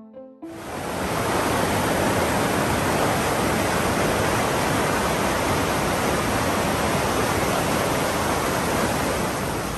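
A fast mountain stream rushing over boulders: a loud, steady wash of water that starts abruptly about half a second in, just as piano music breaks off.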